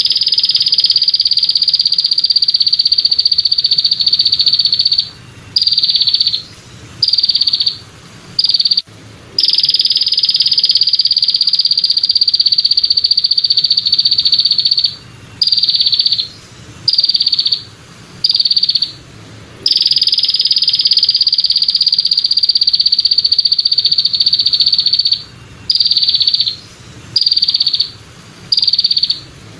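Belalang kecek katydid (bush cricket) stridulating: a loud, high buzz held for about five seconds, then four or five short buzzes in quick succession, the cycle repeating about every ten seconds.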